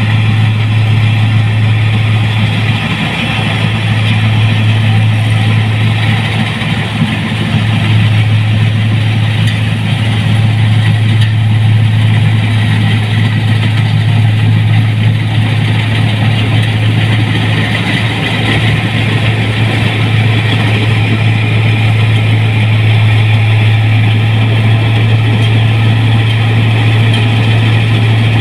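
New Holland 1545 combine harvesters running under load while harvesting rice: a loud, steady engine drone with a strong low hum and dense mechanical noise from the machine.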